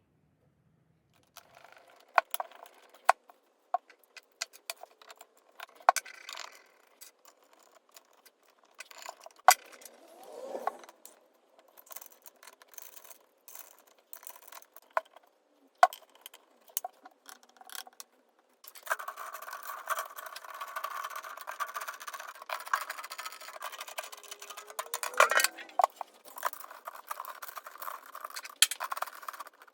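A tom drum and its hardware being handled and cleaned: scattered clicks, knocks and light metallic rattles, then a steady rubbing noise from about two-thirds of the way in.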